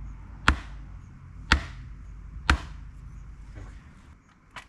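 Hammer blows on wood, three hard strikes about a second apart, then a lighter knock near the end.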